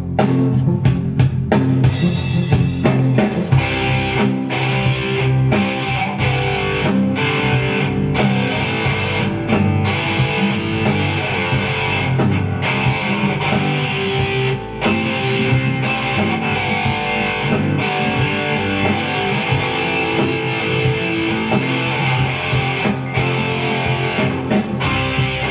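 Guitar being played, with plucked notes and strums over a steady beat.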